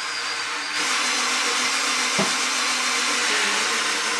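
Power drill running steadily, driving a manual wire stripper as it strips wire.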